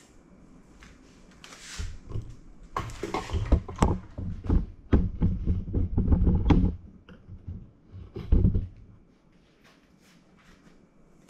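Knocks, thunks and clatter of containers and utensils handled on a kitchen counter while sauce ingredients are measured out. The sounds come in a dense run of several seconds, with one last thump shortly after.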